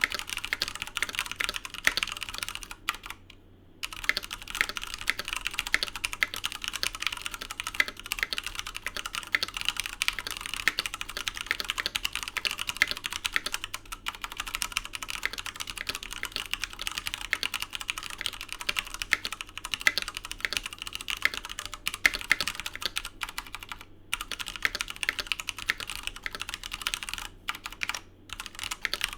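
Continuous fast typing on a Filco Majestouch 2 TKL mechanical keyboard with stock Cherry MX Hyperglide Brown tactile switches, PBT keycaps and an aluminium plate in a tray-mount case. It pauses briefly a few seconds in and again near the end.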